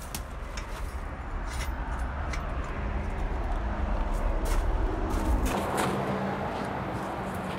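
Propane-fired homemade keg foundry furnace running with a low rumble, while steel tongs and a pouring shank clink several times against a crucible of molten bronze. The rumble stops abruptly about five and a half seconds in.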